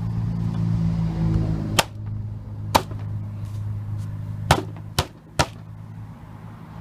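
Plastic trim clips being tapped by hand into a BMW E46 rear bumper shell: five sharp taps at uneven spacing, three of them close together near the end, over a steady low hum.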